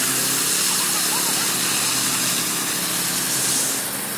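Walk-behind concrete power trowel's small petrol engine running steadily while its blades float a wet concrete slab: a steady engine hum with a strong hiss over it.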